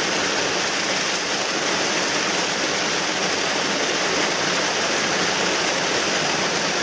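Water pouring over a small concrete weir into the plunge pool below, a steady rush of white water.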